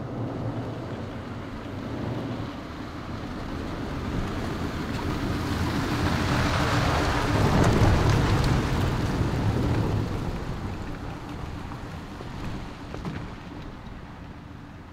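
First-generation Toyota Tundra pickup with a truck camper driving past on a gravel road: engine hum and tyre noise on gravel grow louder as it approaches, are loudest about eight seconds in, then fade as it drives away.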